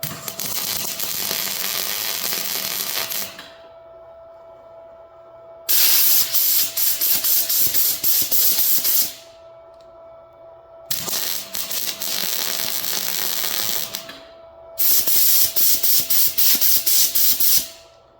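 Short MIG spot welds from a Miller 212 welder on thin body-panel steel, crackling in rapid flickers, alternating with steady hissing blasts of compressed air that cool each weld. There are four bursts of a few seconds each, separated by pauses: hiss, crackle, hiss, then crackle. A faint steady tone runs underneath.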